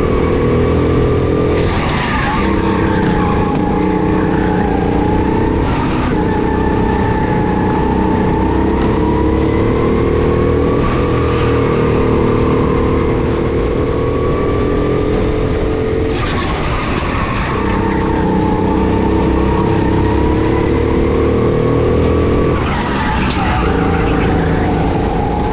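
Go-kart engine running hard, heard from on board the kart, its note holding steady down the straights. About four times the note drops away under braking, with a short burst of tyre scrub as the kart slides through a corner.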